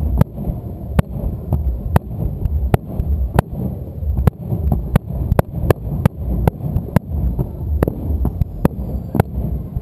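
Aerial firework shells bursting one after another, sharp cracks coming about two to three a second over a continuous low rumble of booming.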